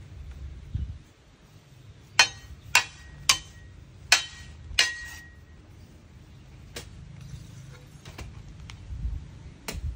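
Five sharp metal-on-metal knocks in quick succession, a hoe head striking the top of a metal patio-umbrella pole to drive it into the soil, two of them ringing briefly. A few fainter knocks follow near the end.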